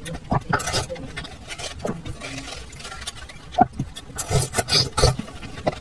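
A metal spoon scrapes and scoops the soft, juicy flesh of an ice cream melon in short irregular strokes. Wet bites and chewing follow as a spoonful is eaten.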